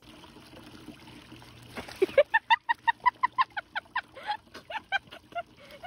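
Water splashing as a cat slips into a garden pond about two seconds in. Then a rapid run of short, high-pitched vocal cries follows, about six a second.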